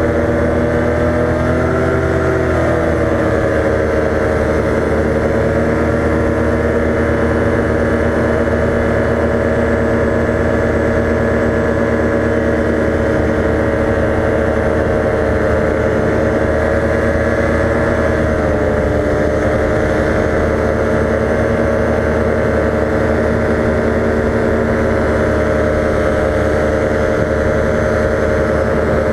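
Paramotor engine and propeller running steadily in flight. The pitch rises briefly about two seconds in, then steps down slightly a little over halfway through as the engine speed drops.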